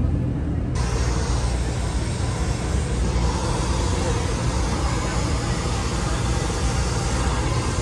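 Steady rushing noise over a low rumble, with faint background chatter from a busy backstage room; the noise gets brighter about a second in.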